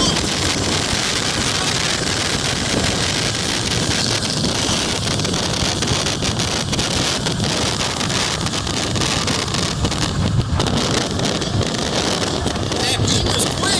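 Steady rush of wind buffeting the microphone along with tyre and road noise from a car travelling at freeway speed, heard from inside the car.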